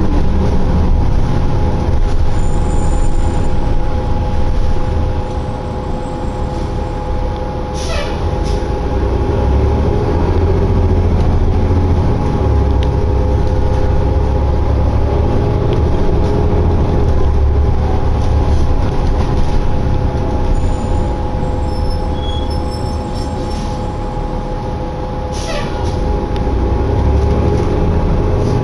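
City transit bus heard from inside the passenger cabin while riding: a steady low engine and drivetrain rumble with a constant whine on top. The rumble eases slightly twice. Two brief sounds that fall in pitch come about 17 seconds apart.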